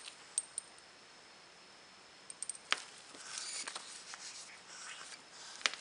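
A bore snake being pulled through a Colt Open Top revolver barrel, giving a soft rubbing swish in the second half. Before it come a few light clicks and taps from the barrel being handled.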